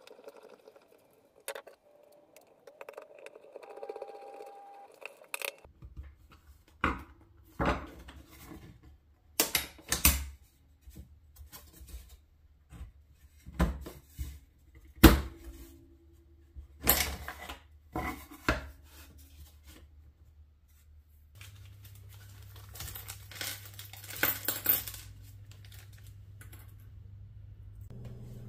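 Hard objects knocking and clattering against each other as they are handled, about a dozen sharp knocks spread irregularly over some fifteen seconds. Near the end comes a few seconds of scratchy noise.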